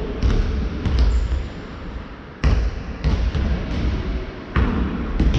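Basketballs bouncing on a wooden sports-hall floor: irregular sharp thuds, with a smear of hall echo after each and a louder bounce about halfway through.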